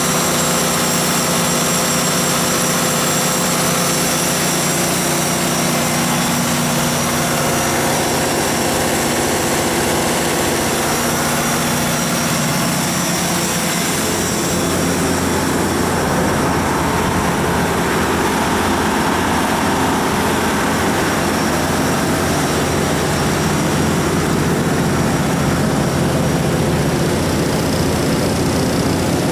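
John Deere 6090HF485 inline-six diesel engine of a Magnum MMG320 generator set running steadily. It sounds close and loud at first, and its tone shifts about halfway through as the microphone moves out of the open engine compartment.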